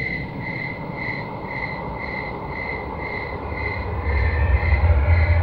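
Crickets chirping in a night ambience, a high pulse about twice a second, over a low rumble that swells in near the end.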